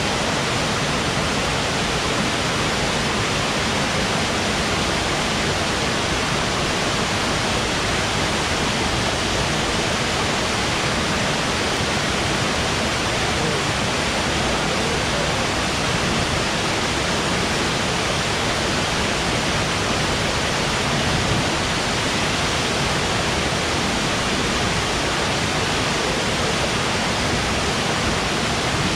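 Steady, unbroken rush of a waterfall.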